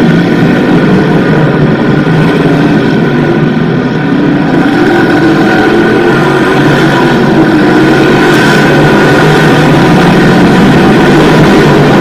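Small-block V8 dirt modified race cars racing around the track, a loud continuous engine drone from several cars at once. The sound dips slightly about four seconds in and builds again as the pack comes round toward the turn near the end.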